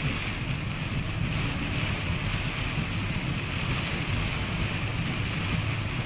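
Steady road noise inside a moving car on a rain-soaked highway: a low rumble with an even hiss of tyres on wet pavement.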